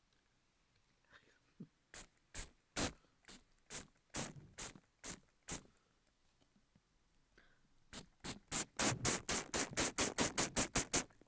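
Trigger spray bottle spritzing water, a horror-film rain effect: scattered single squirts, then a rapid run of quick pumps near the end.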